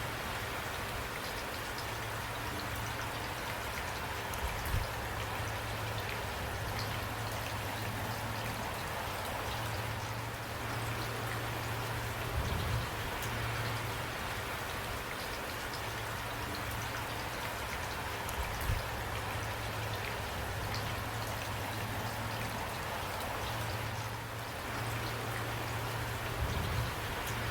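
Steady rain falling, with many small drop ticks and a few brief soft low thumps.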